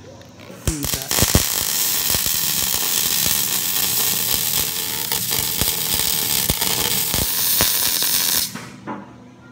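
HTP MIG 2400 welder arc running a bead on a coped steel pipe joint, bridging the gap at the cope. It makes a steady hiss thick with crackles, begins with a couple of short strikes about a second in, and cuts off about a second before the end.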